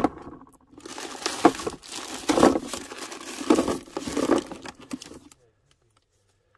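Plastic food bags crinkling and rustling as a hand rummages through a cooler, swelling louder several times, then cutting off to silence a little after five seconds in.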